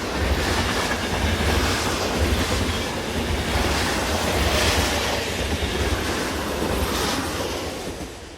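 A train running, with a steady rumble and a clickety-clack of wheels on rail joints, fading out near the end.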